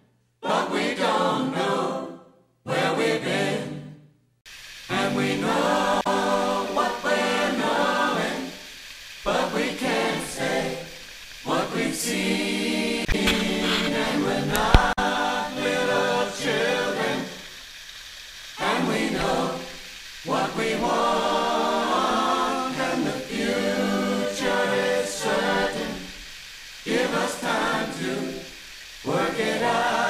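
Background music: a choir singing in phrases a few seconds long, with short pauses between them.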